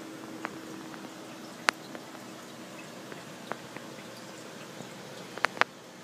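Aquarium running with its pump's steady low hum and bubbling water, broken by scattered sharp clicks and drips, two in quick succession near the end.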